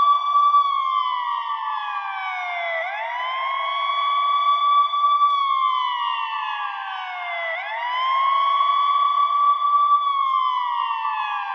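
Electronic siren wail: the tone rises quickly, holds a high pitch for about two seconds, then slides steadily down, repeating about every five seconds.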